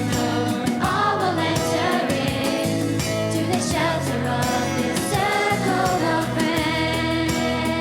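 Youth choir musical number: an accompaniment track with a steady beat and voices singing over it.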